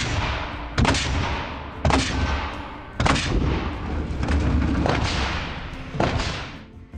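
A series of sharp bangs, the first four about a second apart and a last one after a longer gap, each trailing off in a long fading ring.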